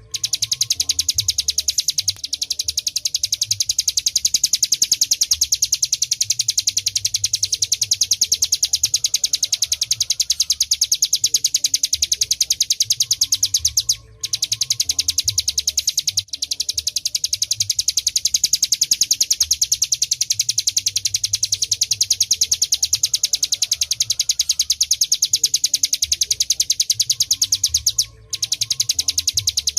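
Ciblek gunung song: a fast, continuous, high-pitched trill of rapidly repeated notes, with brief breaks about halfway through and near the end.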